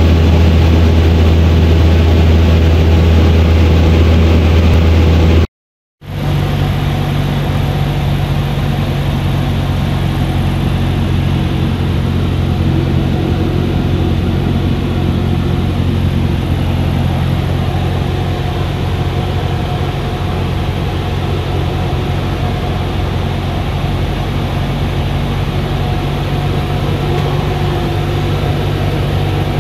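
Cessna 172's piston engine and propeller droning steadily, heard inside the cabin. The sound drops out for about half a second some five seconds in, then resumes with a higher hum.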